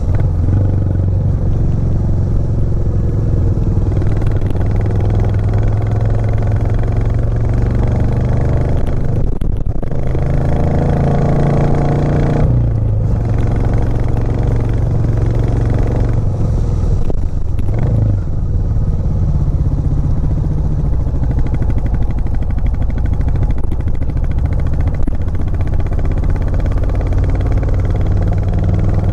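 Royal Enfield Classic 350's single-cylinder engine running under load as the motorcycle climbs uphill. Its pitch shifts a few times, about ten, thirteen and eighteen seconds in.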